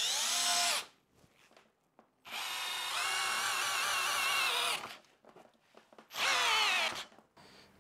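Hilti SFE 2-A12 12 V cordless drill driver in first gear driving a 10 × 140 mm lag screw into fir. Its motor whines in three pulls, each slowing and stopping under the load. The tool is short of the power to sink the screw, which goes in only about 4 cm.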